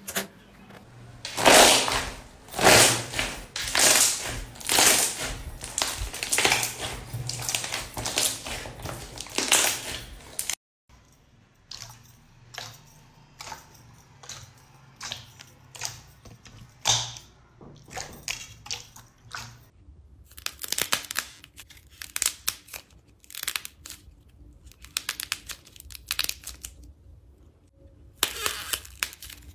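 Slime being pressed, stretched and squeezed by hand, giving sticky crackles and squelches in irregular bursts. The bursts are dense and loud at first, then after a short break about ten seconds in they turn sparser and quieter.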